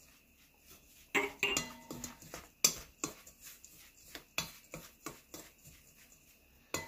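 Metal chopsticks stirring elm seeds and flour in a stainless steel bowl: irregular clicks and short scrapes as the chopsticks knock and drag against the bowl.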